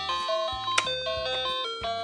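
Background music: a melody of short stepped notes over a bass line, with one sharp click a little under a second in.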